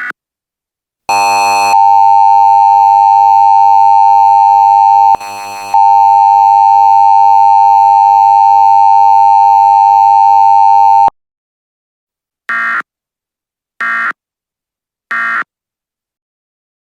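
Emergency Alert System alert tones: a steady electronic attention tone just under 1 kHz held for about nine seconds, broken briefly near the middle, followed by three short data bursts about a second and a half apart, the end-of-message code closing the alert.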